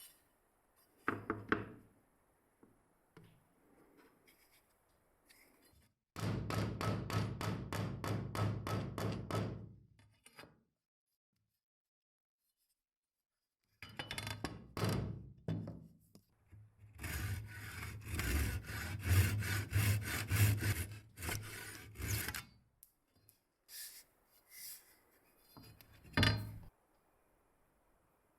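Rapid back-and-forth abrasive rubbing strokes worked by hand, about four a second, in two runs with a silent gap between, plus a few separate scrapes and knocks.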